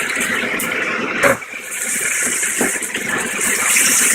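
Dry tofu sizzling in the pan with soy sauce and water, a steady hiss, with a sharp knock about a second in.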